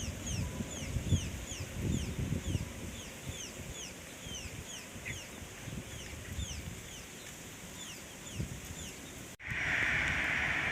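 A bird calling in a fast series of short downward-sliding chirps, about three a second, over wind rumbling on the microphone. An abrupt cut near the end brings in a steady high hiss.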